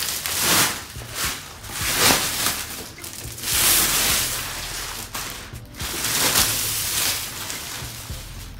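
Clear plastic wrapping film crinkling and rustling in loud, irregular swells as it is pulled off cardboard boxes.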